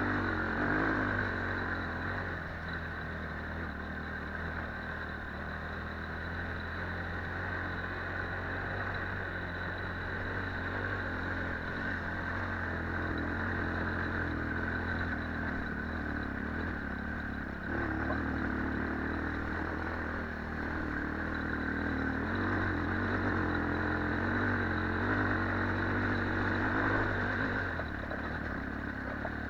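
Rollei 425 quad bike's engine running steadily for the whole stretch, with small rises and falls in level.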